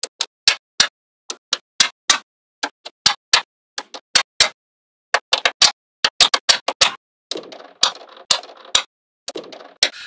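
Small magnetic balls clicking sharply as rows of them snap onto a slab of magnetic balls, in an uneven string of many clicks. In the last few seconds the clicks come with a softer rattle of balls settling against each other.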